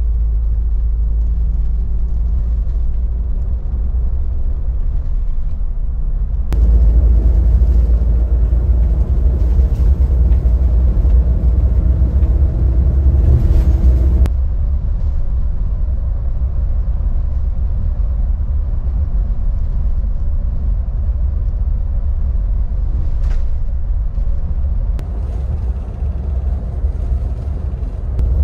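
Coach bus driving at highway speed, heard from inside the cabin: a steady low rumble of engine and tyre noise. It jumps louder about six seconds in and drops back about fourteen seconds in.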